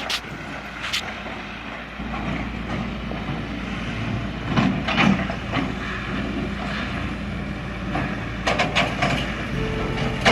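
A heavy vehicle's engine running steadily with a low hum, with two spells of sharp clattering knocks, one about halfway through and one near the end.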